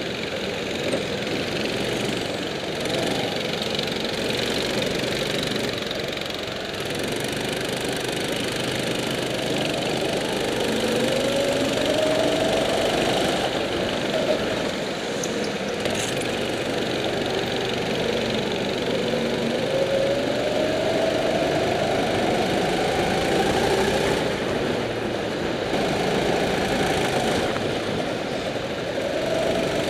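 Go-kart engines running hard on track, heard from on board one kart: a steady engine drone whose note climbs in long rises as the kart accelerates out of the corners, twice clearly and again near the end, with other karts' engines close by.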